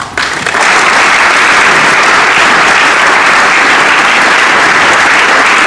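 Large seated audience applauding, a dense, steady clapping that breaks out just after the start and holds evenly.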